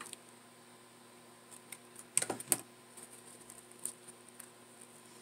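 Faint rustling and small clicks of satin ribbon petals being folded and pressed by fingers, with a short louder rustle a little after two seconds in.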